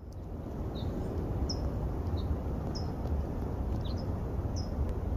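A bird repeating short, high chirps about once a second over a steady rushing noise that is strongest in the low end.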